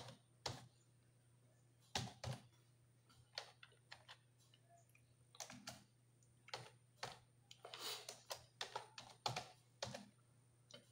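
Computer keyboard being typed slowly, key by key: irregular single clicks with pauses between them, becoming a quicker run of keystrokes in the second half.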